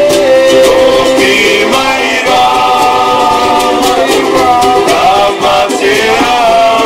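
A group of men singing together in harmony, several voices holding long notes that slide from pitch to pitch.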